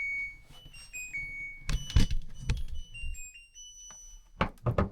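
Front-loading washing machine's end-of-cycle chime, a short electronic tune of beeps stepping up and down in pitch, signalling that the cycle has finished. A few clicks sound about two seconds in, and a cluster of clicks and knocks comes near the end.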